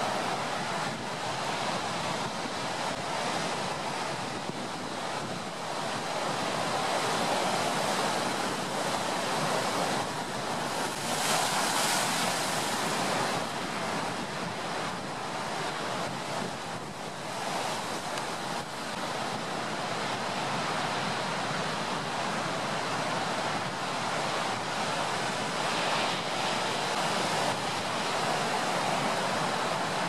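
Heavy surf breaking and washing in a strong wind: a continuous rushing noise, with one louder surge about eleven seconds in.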